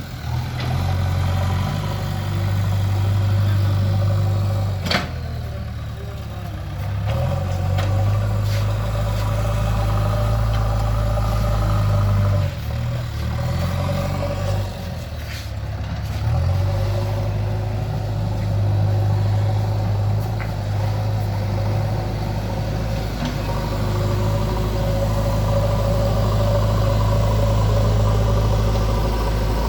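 JCB 3DX backhoe loader's diesel engine running, its note dipping and picking up again several times, with a single sharp knock about five seconds in.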